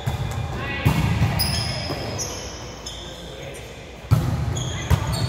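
Volleyball play on a gym court: sharp ball impacts about a second in and twice near the end, with short high squeaks of sneakers on the hardwood floor between them, in a reverberant hall.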